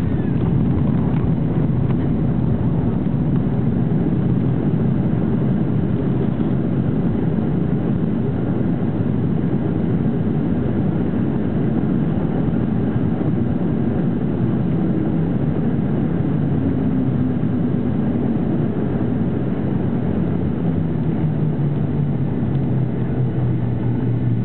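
Steady low rumble inside the passenger cabin of a Boeing 737-800, from its CFM56 jet engines and the rush of air. Faint humming tones come in and fall slightly in pitch near the end.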